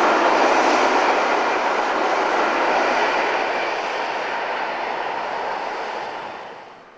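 Freight train rolling along the rails, a steady rushing of wheels on track that fades as the train moves away and drops off sharply just before the end.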